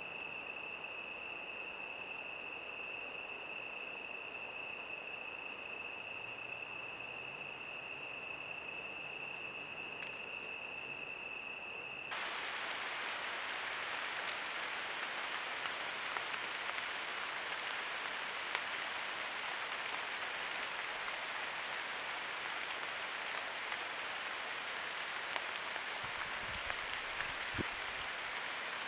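Night insect chorus, crickets trilling steadily in two high-pitched bands. About twelve seconds in it cuts off abruptly and a louder, even outdoor hiss takes over, with a few soft low thumps near the end.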